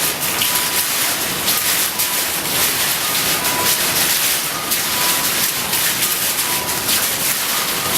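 Falling water from a water-curtain waterfall display, splashing as a steady, dense hiss.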